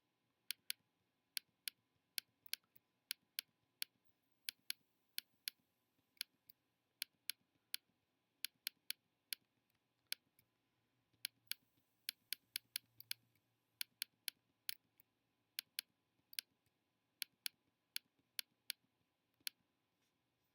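Computer mouse clicking in an irregular series of short, sharp clicks, roughly two to three a second, with a brief pause about halfway through.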